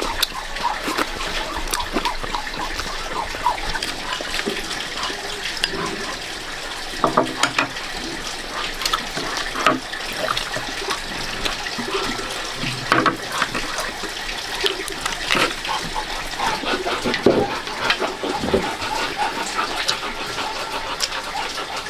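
Water running and splashing, with irregular clinks and knocks.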